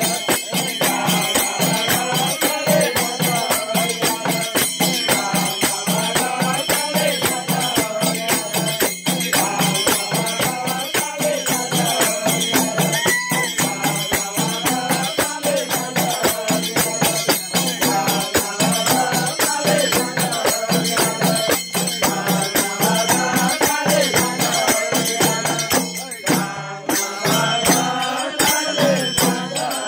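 Palpali bhajan, a Nepali devotional folk song: a group chanting the melody over a fast, steady beat of hand-held frame drums.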